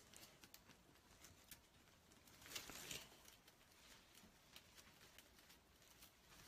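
Faint rustling and scattered light clicks of burlap ribbon being handled and tied onto a grapevine wreath, with a short louder rustle about two and a half seconds in.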